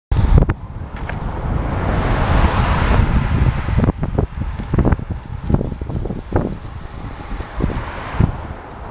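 Wind buffeting the microphone of a camera riding on a moving road bicycle: a steady low rumble broken by frequent gusty thumps. A rushing hiss swells and fades about two to four seconds in.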